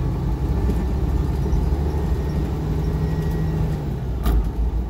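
Semi-truck engine running, heard from inside the cab as a steady low rumble. A short click sounds about four seconds in.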